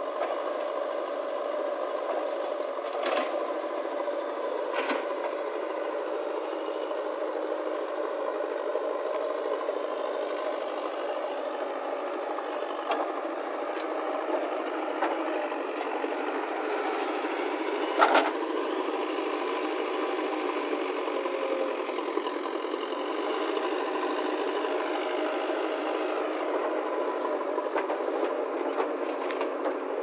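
JCB 3DX backhoe loader's diesel engine running steadily while it works, with a few sharp knocks from the machine. The loudest knock comes a little past the middle.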